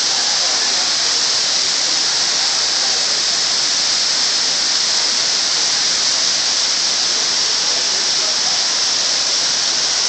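Waterfall pouring down a rock face: a loud, steady rush of water with a bright hiss.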